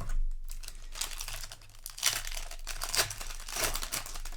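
Foil booster pack wrapper crinkling and crumpling in hand, in several irregular bursts.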